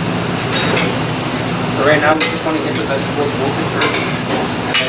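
Carrot and onion strips sizzling in a stainless steel pot on a gas burner as they are stirred, with several scrapes and clinks of the utensil against the pot. A steady low hum runs underneath.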